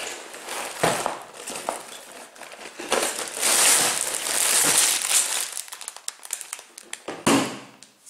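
Clear plastic bags of Lego pieces crinkling and rustling as they are tipped out of the cardboard box onto a wooden table. A few knocks mark the box and bags hitting the tabletop. The crinkling is loudest in the middle.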